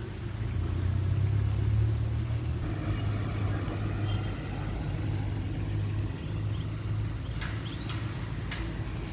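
A low, steady rumble that swells about a second in and slowly eases off, with a few faint clicks near the end.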